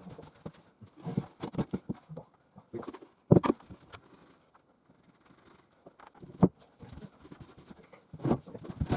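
Irregular light taps and knocks of objects being handled, with louder knocks about three seconds in and again about six and a half seconds in.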